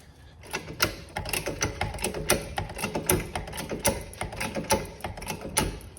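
A car jack being pumped by its handle, clicking and clanking on each stroke. About six heavier strokes come roughly every 0.8 s, with lighter clicks between, as the sway bar end is raised.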